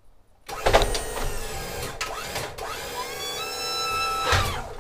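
Motorcycle lift's motor whining as the platform folds up, with two short breaks around two seconds in and a rising pitch in its later part, stopping near the end.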